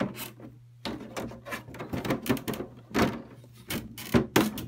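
Translucent plastic panels of a folding portable airbrush spray booth being opened out and set in place by hand: a series of irregular knocks, clicks and short scrapes of plastic on plastic.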